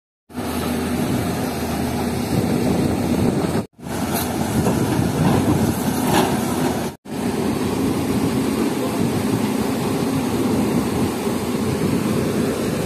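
Diesel engine of a Hyundai 220LC-7 crawler excavator running steadily, a dense low machine drone, broken twice by brief gaps.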